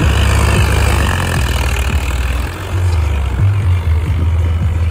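Swaraj 855 tractor's diesel engine working steadily under load, held at about 1800 rpm while pulling a disc harrow through dry soil.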